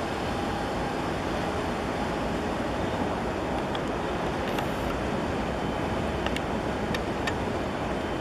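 Steady harbour noise of wind and water with a low rumble as a large container ship passes close by. A few faint clicks come about halfway through.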